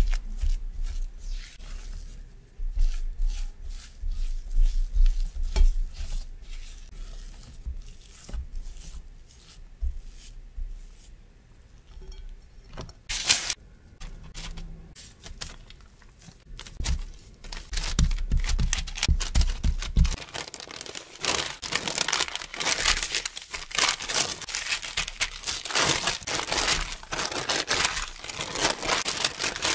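Silicone spatula stirring and pressing crumbly cookie dough in a glass bowl, with scraping and soft knocks against the bowl. From about twenty seconds in, parchment paper crinkles steadily as the dough is rolled into a log inside it.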